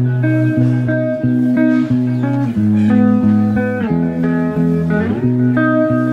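Background music: an instrumental led by plucked guitar, with notes changing every half second or so over a low bass line.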